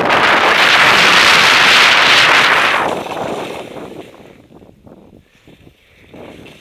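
Telemark skis scraping and sliding over hard, thin snow cover, loud for about the first three seconds, then dying down to scattered softer scuffs.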